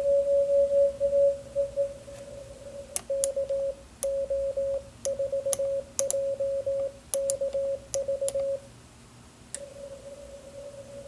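Morse code (CW) tones at one steady pitch from a Recent RS-978 QRP transceiver. First comes a run of long tones. From about three seconds in the tone is keyed in short on-off elements with sharp clicks. It stops just past eight seconds, and a fainter steady tone comes back near the end.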